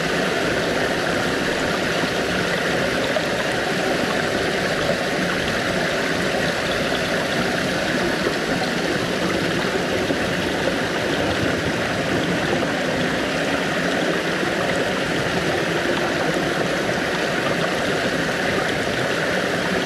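Small waterfall pouring over rocks into a shallow pool: a steady rush of splashing water.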